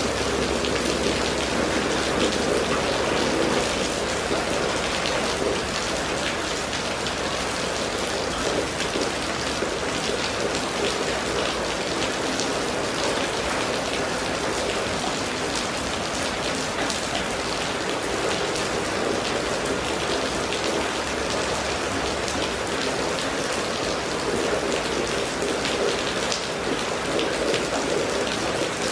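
Steady rain falling on a wet, water-covered paved street.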